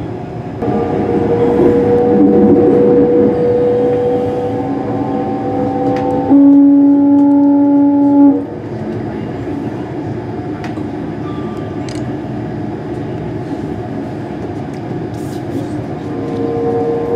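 Class 385 electric multiple unit heard from inside, its traction motors giving a steady whine that rises slightly as the train accelerates. About six seconds in, a train horn sounds one steady note for about two seconds, the loudest thing here. After that the whine stops, leaving the rolling rumble of the train, and the whine comes back near the end.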